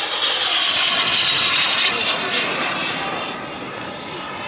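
Turbine engine of a radio-controlled T-33 model jet in flight, a steady rushing whine. It is loudest a second or two in and eases off toward the end as the jet flies away.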